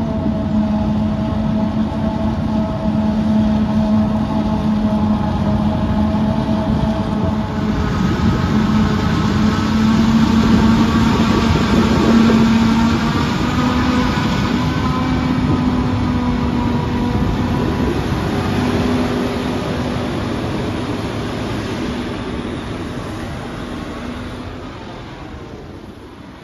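Heavy farm machinery engines running as a forage harvester and a tractor pulling a silage trailer go past during maize silage harvest, a steady loud drone with engine tones that shift slightly in pitch. It is loudest in the middle and fades away over the last few seconds.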